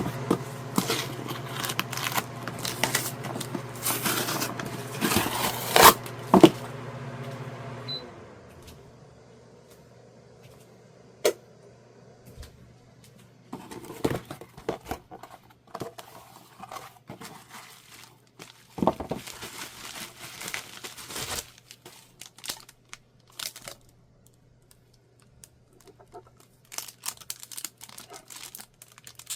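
A parcel's packaging being torn open and crinkled by hand, with plastic wrapping rustling. The first several seconds are the loudest, with sharp tears around five to six seconds in, then quieter intermittent crinkling.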